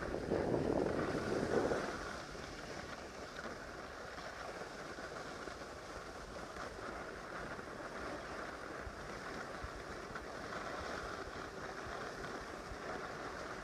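Wind rushing over the microphone and skis hissing on groomed snow while skiing downhill. It is louder for about the first two seconds, then settles into a steadier, quieter rush.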